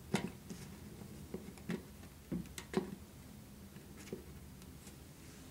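A scatter of small, light clicks and taps, most of them in the first three seconds, from fingers working a plastic joiner sleeper (cross tie) under the rail joiner of model railroad flex track.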